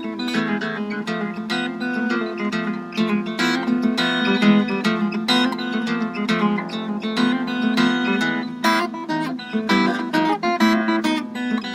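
Harp guitar played solo: a fingerpicked melody over ringing bass strings, in a lively dance tune in 13/8 time.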